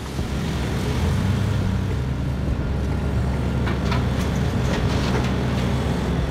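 Large hydraulic shovel excavator's diesel engine running steadily, with a few short knocks.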